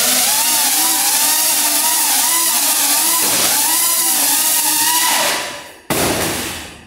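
Four 64 mm electric ducted lift fans (T-Motor F100 motors) whining loudly, their pitch wavering up and down as the flight controller fails to hold the model steady. The whine fades away about five seconds in. About six seconds in there is a sudden loud crash that dies away within a second, as the model hits the ceiling and falls.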